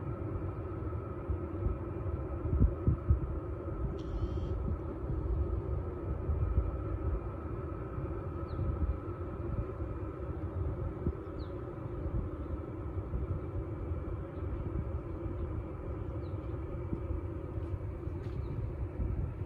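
Outdoor ambience: a steady low rumble with a few faint, short bird chirps, the clearest about four seconds in.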